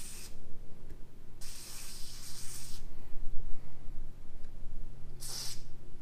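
Aerosol can of white lithium spray grease hissing through its extension straw into a garage door hinge's pivot, in three spurts: a brief one at the start, one of about a second and a half, and a short one near the end.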